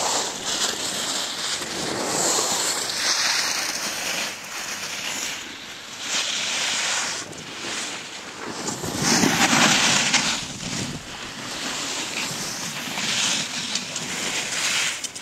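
Wind buffeting the microphone and skis scraping over packed snow on a downhill run. The noise swells and fades every few seconds and is loudest about nine to ten seconds in.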